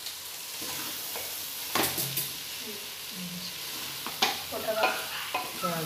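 Cooked rice being stirred into vegetables frying in a steel pot with a wooden spatula: a steady sizzle, broken by a few sharp knocks of the spatula against the pot, the loudest about two seconds in and about four seconds in.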